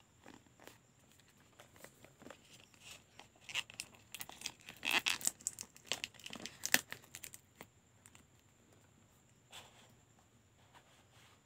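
Cardboard smartphone box being handled and its lid slid off the inner box: a run of dry scraping, rustling and clicking strokes, densest and loudest in the middle few seconds.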